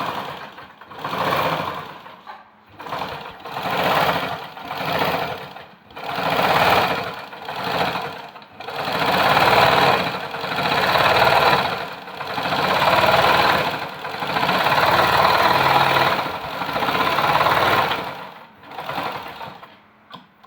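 Raleigh sewing machine stitching two pieces of cloth together into a seam. It runs in stop-start spurts, short at first and then longer, steadier runs.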